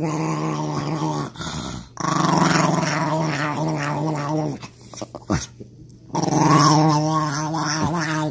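Small Chihuahua-type dog growling in three long, wavering runs, with short breaks about a second in and around five seconds in: its mouthing 'nom nom' growl.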